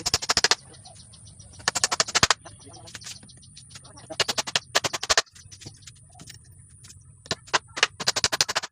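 Short bursts of rapid mechanical hammering, several times over, from an impact driver driving screws to join the wooden table frame.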